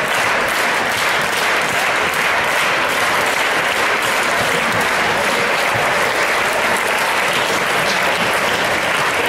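A large audience of schoolchildren and adults applauding steadily, a dense even patter of many hands clapping.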